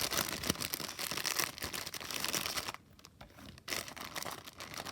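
Packaging of a watercolor paint set crinkling and tearing as it is unwrapped by hand, a busy crackle that drops away for about a second a little under three seconds in, then resumes.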